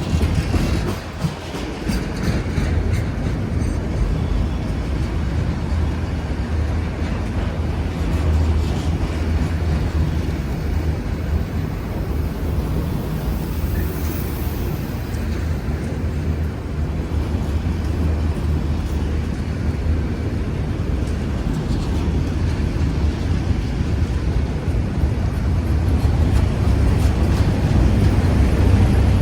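Freight train of empty autorack cars rolling past, a steady low rumble of steel wheels on the rails that grows a little louder near the end.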